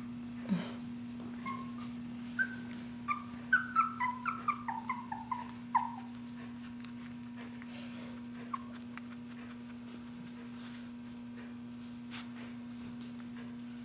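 Young standard poodle puppy whimpering: a quick run of about a dozen short, high squeaks, each falling in pitch, between about two and six seconds in.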